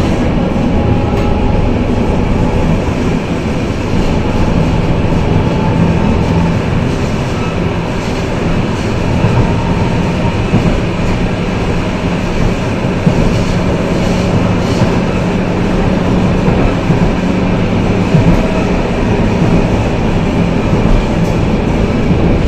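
AnsaldoBreda tram running at speed, heard from inside the passenger car: a steady rumble of wheels on rail, with a steady hum from its variable-frequency traction drive and a few light knocks from the track.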